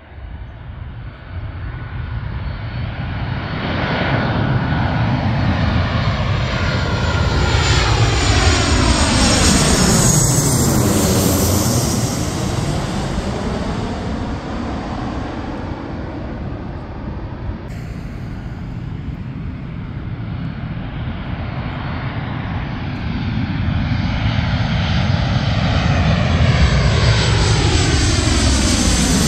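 Twin-engine jet airliners on landing approach, gear down, passing low overhead with a steady jet roar and rumble. The first sweeps past about ten seconds in. After a cut a second jet approaches and grows louder toward the end.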